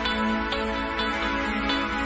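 Background music: sustained chords over a light beat about twice a second.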